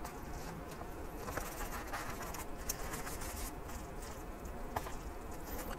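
Thin metal chopsticks stirring cooked noodles through powdered sauce in a paper cup, with soft, irregular clicks and scrapes.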